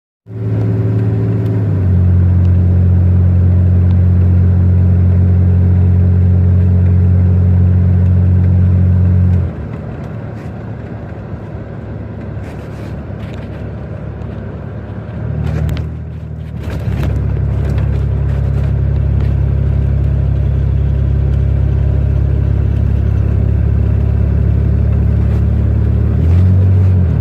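Predator 212 single-cylinder go-kart engine running steadily at a raised speed, then dropping to a lower, rougher running speed about nine seconds in. After a short break it settles into a steady run again, freshly fitted with a new carburetor.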